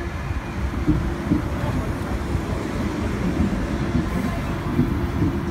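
Sydney's heritage Red Set F1, a red single-deck electric suburban train, rolling past close alongside the platform. Its wheels make a steady low rumble with a faint hum and irregular knocks.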